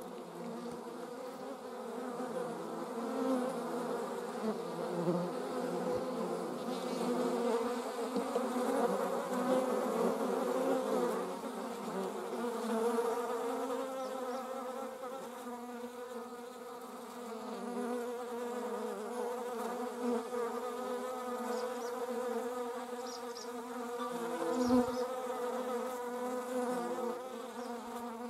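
Wasp buzzing in flight close by: a steady wingbeat hum that wavers slightly in pitch and loudness as it hovers and circles. A brief low thump comes near the end.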